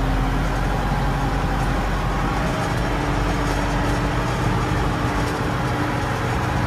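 LS Plus 80 tractor's diesel engine running steadily under light load, heard from inside the cab.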